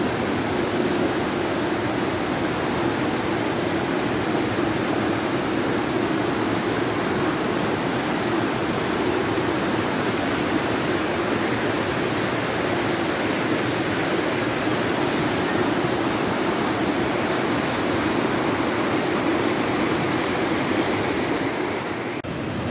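Waterfall: a steady, even rush of falling water, with a brief dip in level near the end.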